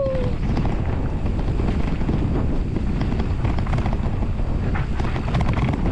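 Wind buffeting the microphone of a GoPro during a mountain-bike descent, over a steady low rumble of tyres on a dirt trail, with a few light rattling clicks in the second half.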